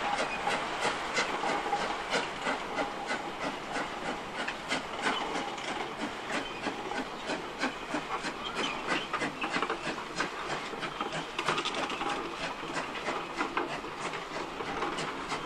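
Narrow-gauge steam locomotive NM25 hauling a passenger train, working hard: a steady, uneven run of exhaust chuffs mixed with the clicking of carriage wheels over rail joints.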